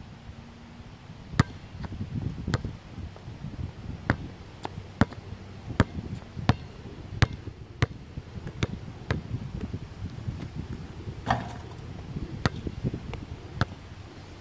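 Basketball being dribbled on an outdoor court: a string of sharp bounces, roughly one every half second to second, with low scuffing and rumble between them.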